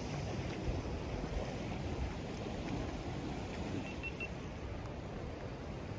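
Steady wind rumble on the microphone over the wash of ocean surf against shore rocks. Three faint, short high beeps come about four seconds in.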